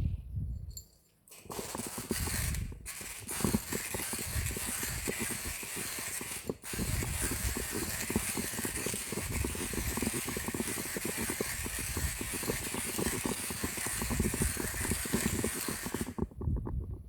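Timemore Chestnut Slim manual coffee grinder crushing coffee beans as its crank is turned: a continuous gritty grinding noise. It starts about a second and a half in, breaks off briefly twice early on, and stops about a second before the end.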